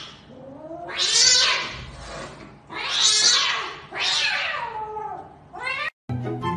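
Cat yowling in a face-off with another cat: about four long calls that rise and fall in pitch, then a short rising one. Music comes in about six seconds in.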